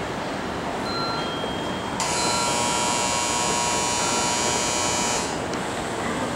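An electronic buzzer sounds for about three seconds over steady station-platform background noise, starting and stopping abruptly. It is a station departure signal for the train waiting at the platform.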